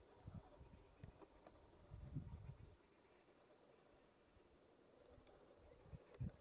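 Near silence with a faint, steady, high insect drone, broken by a few soft low thumps.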